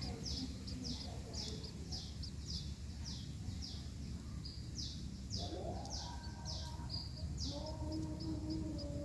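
Small finches, emprit (munias), chirping: short, high chirps repeating about twice a second, over a steady low background hum. A lower, drawn-out call joins from about halfway through.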